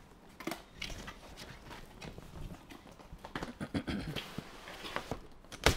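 Cardboard motherboard box being opened and handled: scattered taps, scrapes and rustles of the packaging, with one sharp knock near the end.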